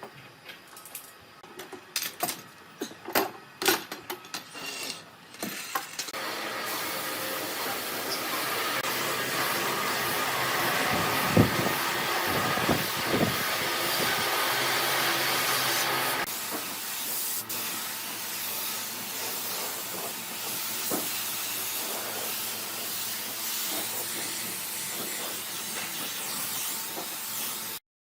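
A few knocks and clicks, then a steady hiss that starts about six seconds in and drops to a softer hiss with occasional light knocks about ten seconds later.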